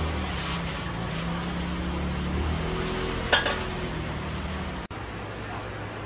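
Street traffic noise with a motor vehicle's engine running steadily close by, a low hum, and one sharp click about three seconds in. About five seconds in it gives way to quieter indoor room tone.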